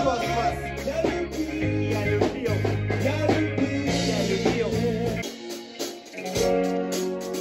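Rock band playing live in a rehearsal room: a singer over bass, drum kit and guitar. About five seconds in, the bass and drums drop out and sustained chords carry on.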